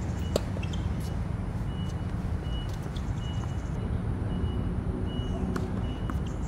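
Tennis ball struck by racquets during a rally: a few sharp pops at irregular gaps, the loudest about half a second in, over a steady low rumble and an on-off high-pitched beeping tone about once a second.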